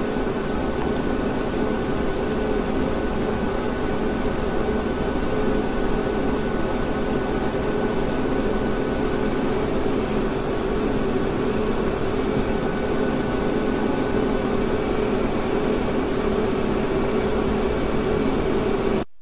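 Steady machine hum: an even noise with a few steady low tones. It cuts off abruptly near the end.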